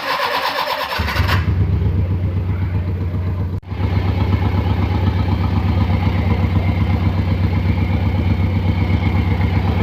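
Conventional petrol car engine idling steadily with an even, fast rhythm, coming in about a second in as brief music ends, with a short break a few seconds later.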